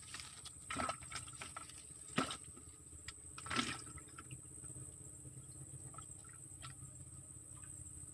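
Small water splashes and knocks at the water's edge, three or four short ones in the first half, the sharpest about two seconds in. A steady high-pitched hum runs underneath.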